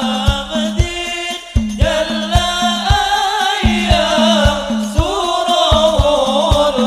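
Music: an Islamic devotional song in the sholawat style, a voice singing a wavering, ornamented melody over a held low drone note and a steady drum beat of about two strokes a second.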